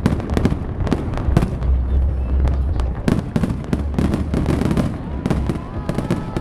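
Fireworks finale barrage: aerial shells bursting in quick succession, several bangs a second over a continuous low rumble.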